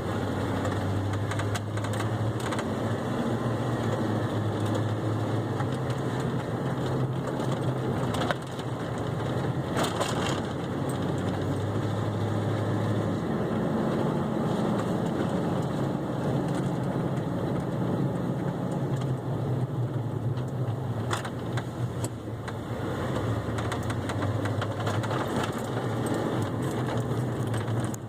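Ford F-150 pickup driving, its engine hum steady and shifting in pitch now and then, with ticking and clicks from the truck running through it.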